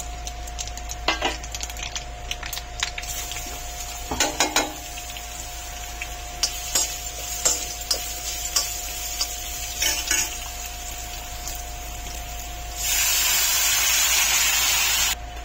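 Steel spoon knocking and scraping against an iron kadai while stirring raw mango pieces and whole spices in hot oil. Near the end a loud steady sizzling hiss runs for about two seconds and cuts off suddenly.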